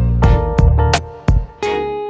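Instrumental background music with quick plucked notes; a chord is held and rings out near the end.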